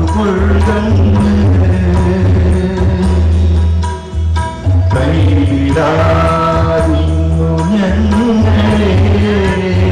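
Devotional song over a loud PA system: a singing voice with instrumental accompaniment and heavy bass, briefly dipping about four seconds in.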